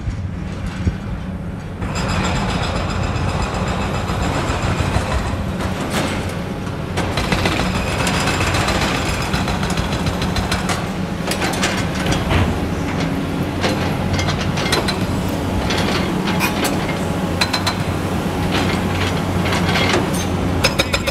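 Hydraulic excavators at work: diesel engines running steadily, with frequent clanks and scrapes from the buckets digging into dirt and rubble. The sound grows louder about two seconds in.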